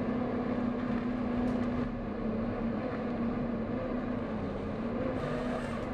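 Barko 240 loader's Cummins QSB 6.7 diesel engine running steadily under work, with a constant low hum.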